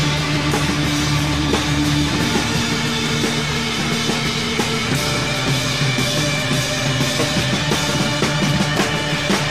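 Rock music with a drum kit and guitar, playing steadily without a break.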